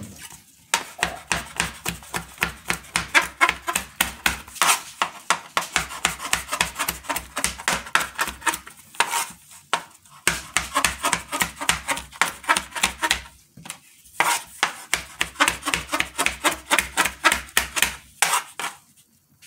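Large kitchen knife quickly chopping cooked shrimp, chicken and beef on a plastic cutting board, in four runs of rapid strokes with short pauses between.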